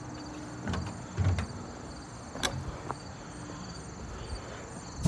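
Crickets chirping steadily in the background, with a few soft knocks about a second in and a sharp click a little later.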